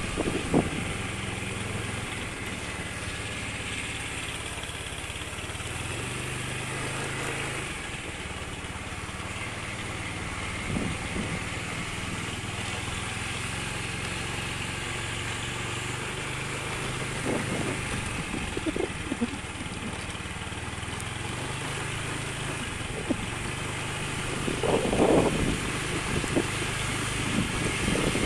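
Small motorcycle engine running at low, fairly steady speed while riding along a village road. The pitch shifts slightly with the throttle, and a few brief louder sounds come near the middle and toward the end.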